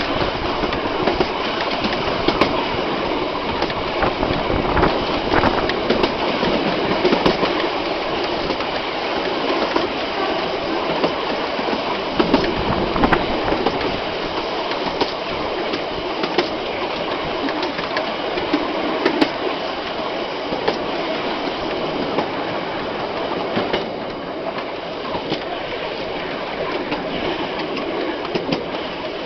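Railway carriage running along the track: a steady rumble of wheels on rail with irregular sharp clicks and knocks as the wheels pass over the rails.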